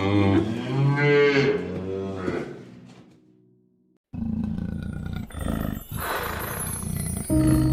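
A large animal's drawn-out, bending call over steady background music, fading out about three seconds in; after a moment of silence the music comes back with another sound over it.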